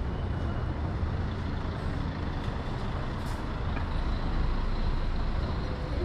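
Street traffic noise: a vehicle engine's low rumble close by, with a short hiss about three seconds in.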